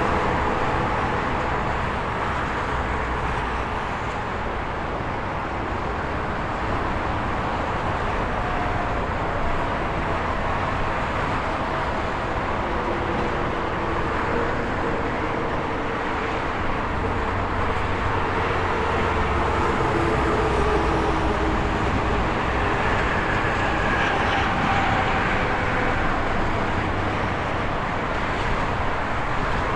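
Steady highway traffic: a continuous rush of tyre and engine noise from cars and trucks going by, swelling gently as vehicles pass. Faint engine and tyre tones slide down in pitch as they go past.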